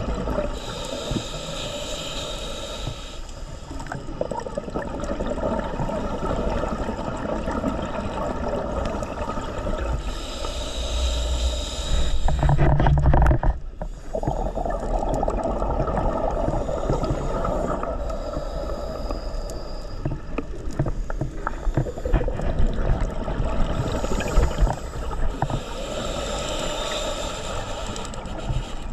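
Underwater sound of a scuba diver breathing through a regulator: bubbly, hissing exhalations rush out a few times over a steady low underwater rumble, with one louder low rush about halfway through.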